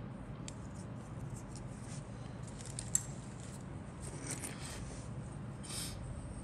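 Small clicks and rustles of plastic model kit parts being handled and turned in the fingers, with one sharp click about three seconds in, over a steady low hum.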